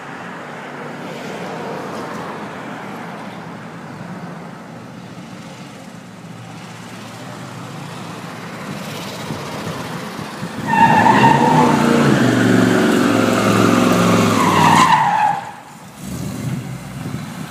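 A 454 big-block V8 in a 1947 Ford rat rod runs at a moderate level for about ten seconds. Then, about eleven seconds in, it revs hard in a burnout while the rear tyres squeal, for about four seconds. The burnout cuts off sharply and the engine drops back to a lower sound.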